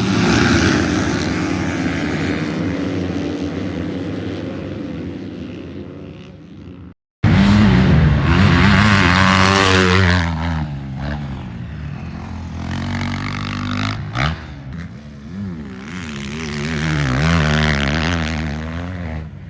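Motocross dirt bike engine running hard, revving up and down through the gears. The sound fades away over the first several seconds, then cuts to a louder pass with rising and falling revs.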